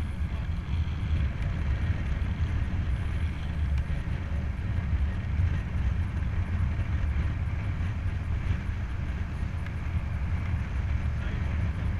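Wind rushing over the microphone of a helmet-mounted camera on a moving road bike: a steady low rumble with a fainter hiss over it.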